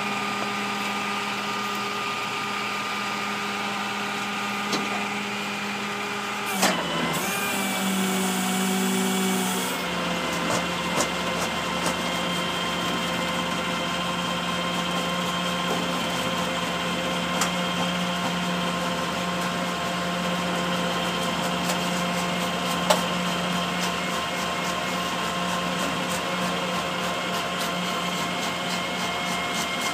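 Tow truck's engine running steadily with a tonal whine. About seven seconds in the pitch wavers, and near ten seconds it steps up to a higher steady speed that holds to the end, with a few light clicks.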